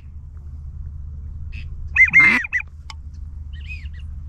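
Duck calling: a quick series of nasal quacks about two seconds in and a fainter call near the end, over a steady low rumble.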